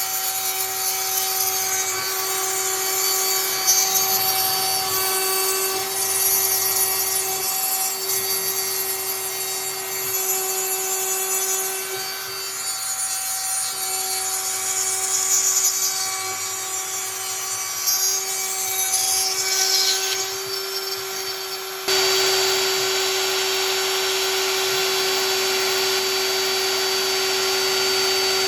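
CNC router spindle whining steadily while its bit cuts wood, with a rasping cutting noise that rises and falls. About three quarters of the way through, a louder, even hiss cuts in suddenly and carries on.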